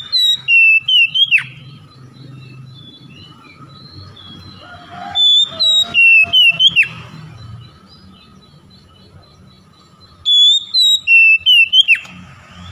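Oriental magpie-robin singing: three short phrases a few seconds apart, each a run of clear whistled notes ending in a sharp downward slur.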